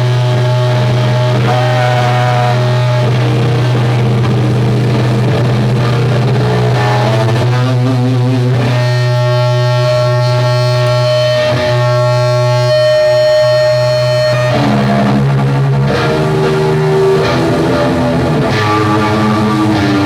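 Doom metal band playing live, with heavily distorted electric guitars holding long droning chords over a steady low rumble. The held notes shift to a new chord about nine seconds in and change again near the end.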